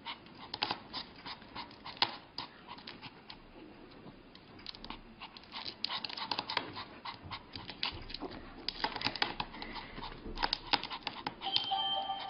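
Small white fluffy dog panting in quick, uneven breaths, with scattered short clicks.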